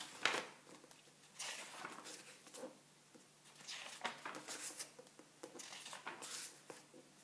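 Paper pages of a book being turned by hand, a soft rustle of paper with each turn, about four times.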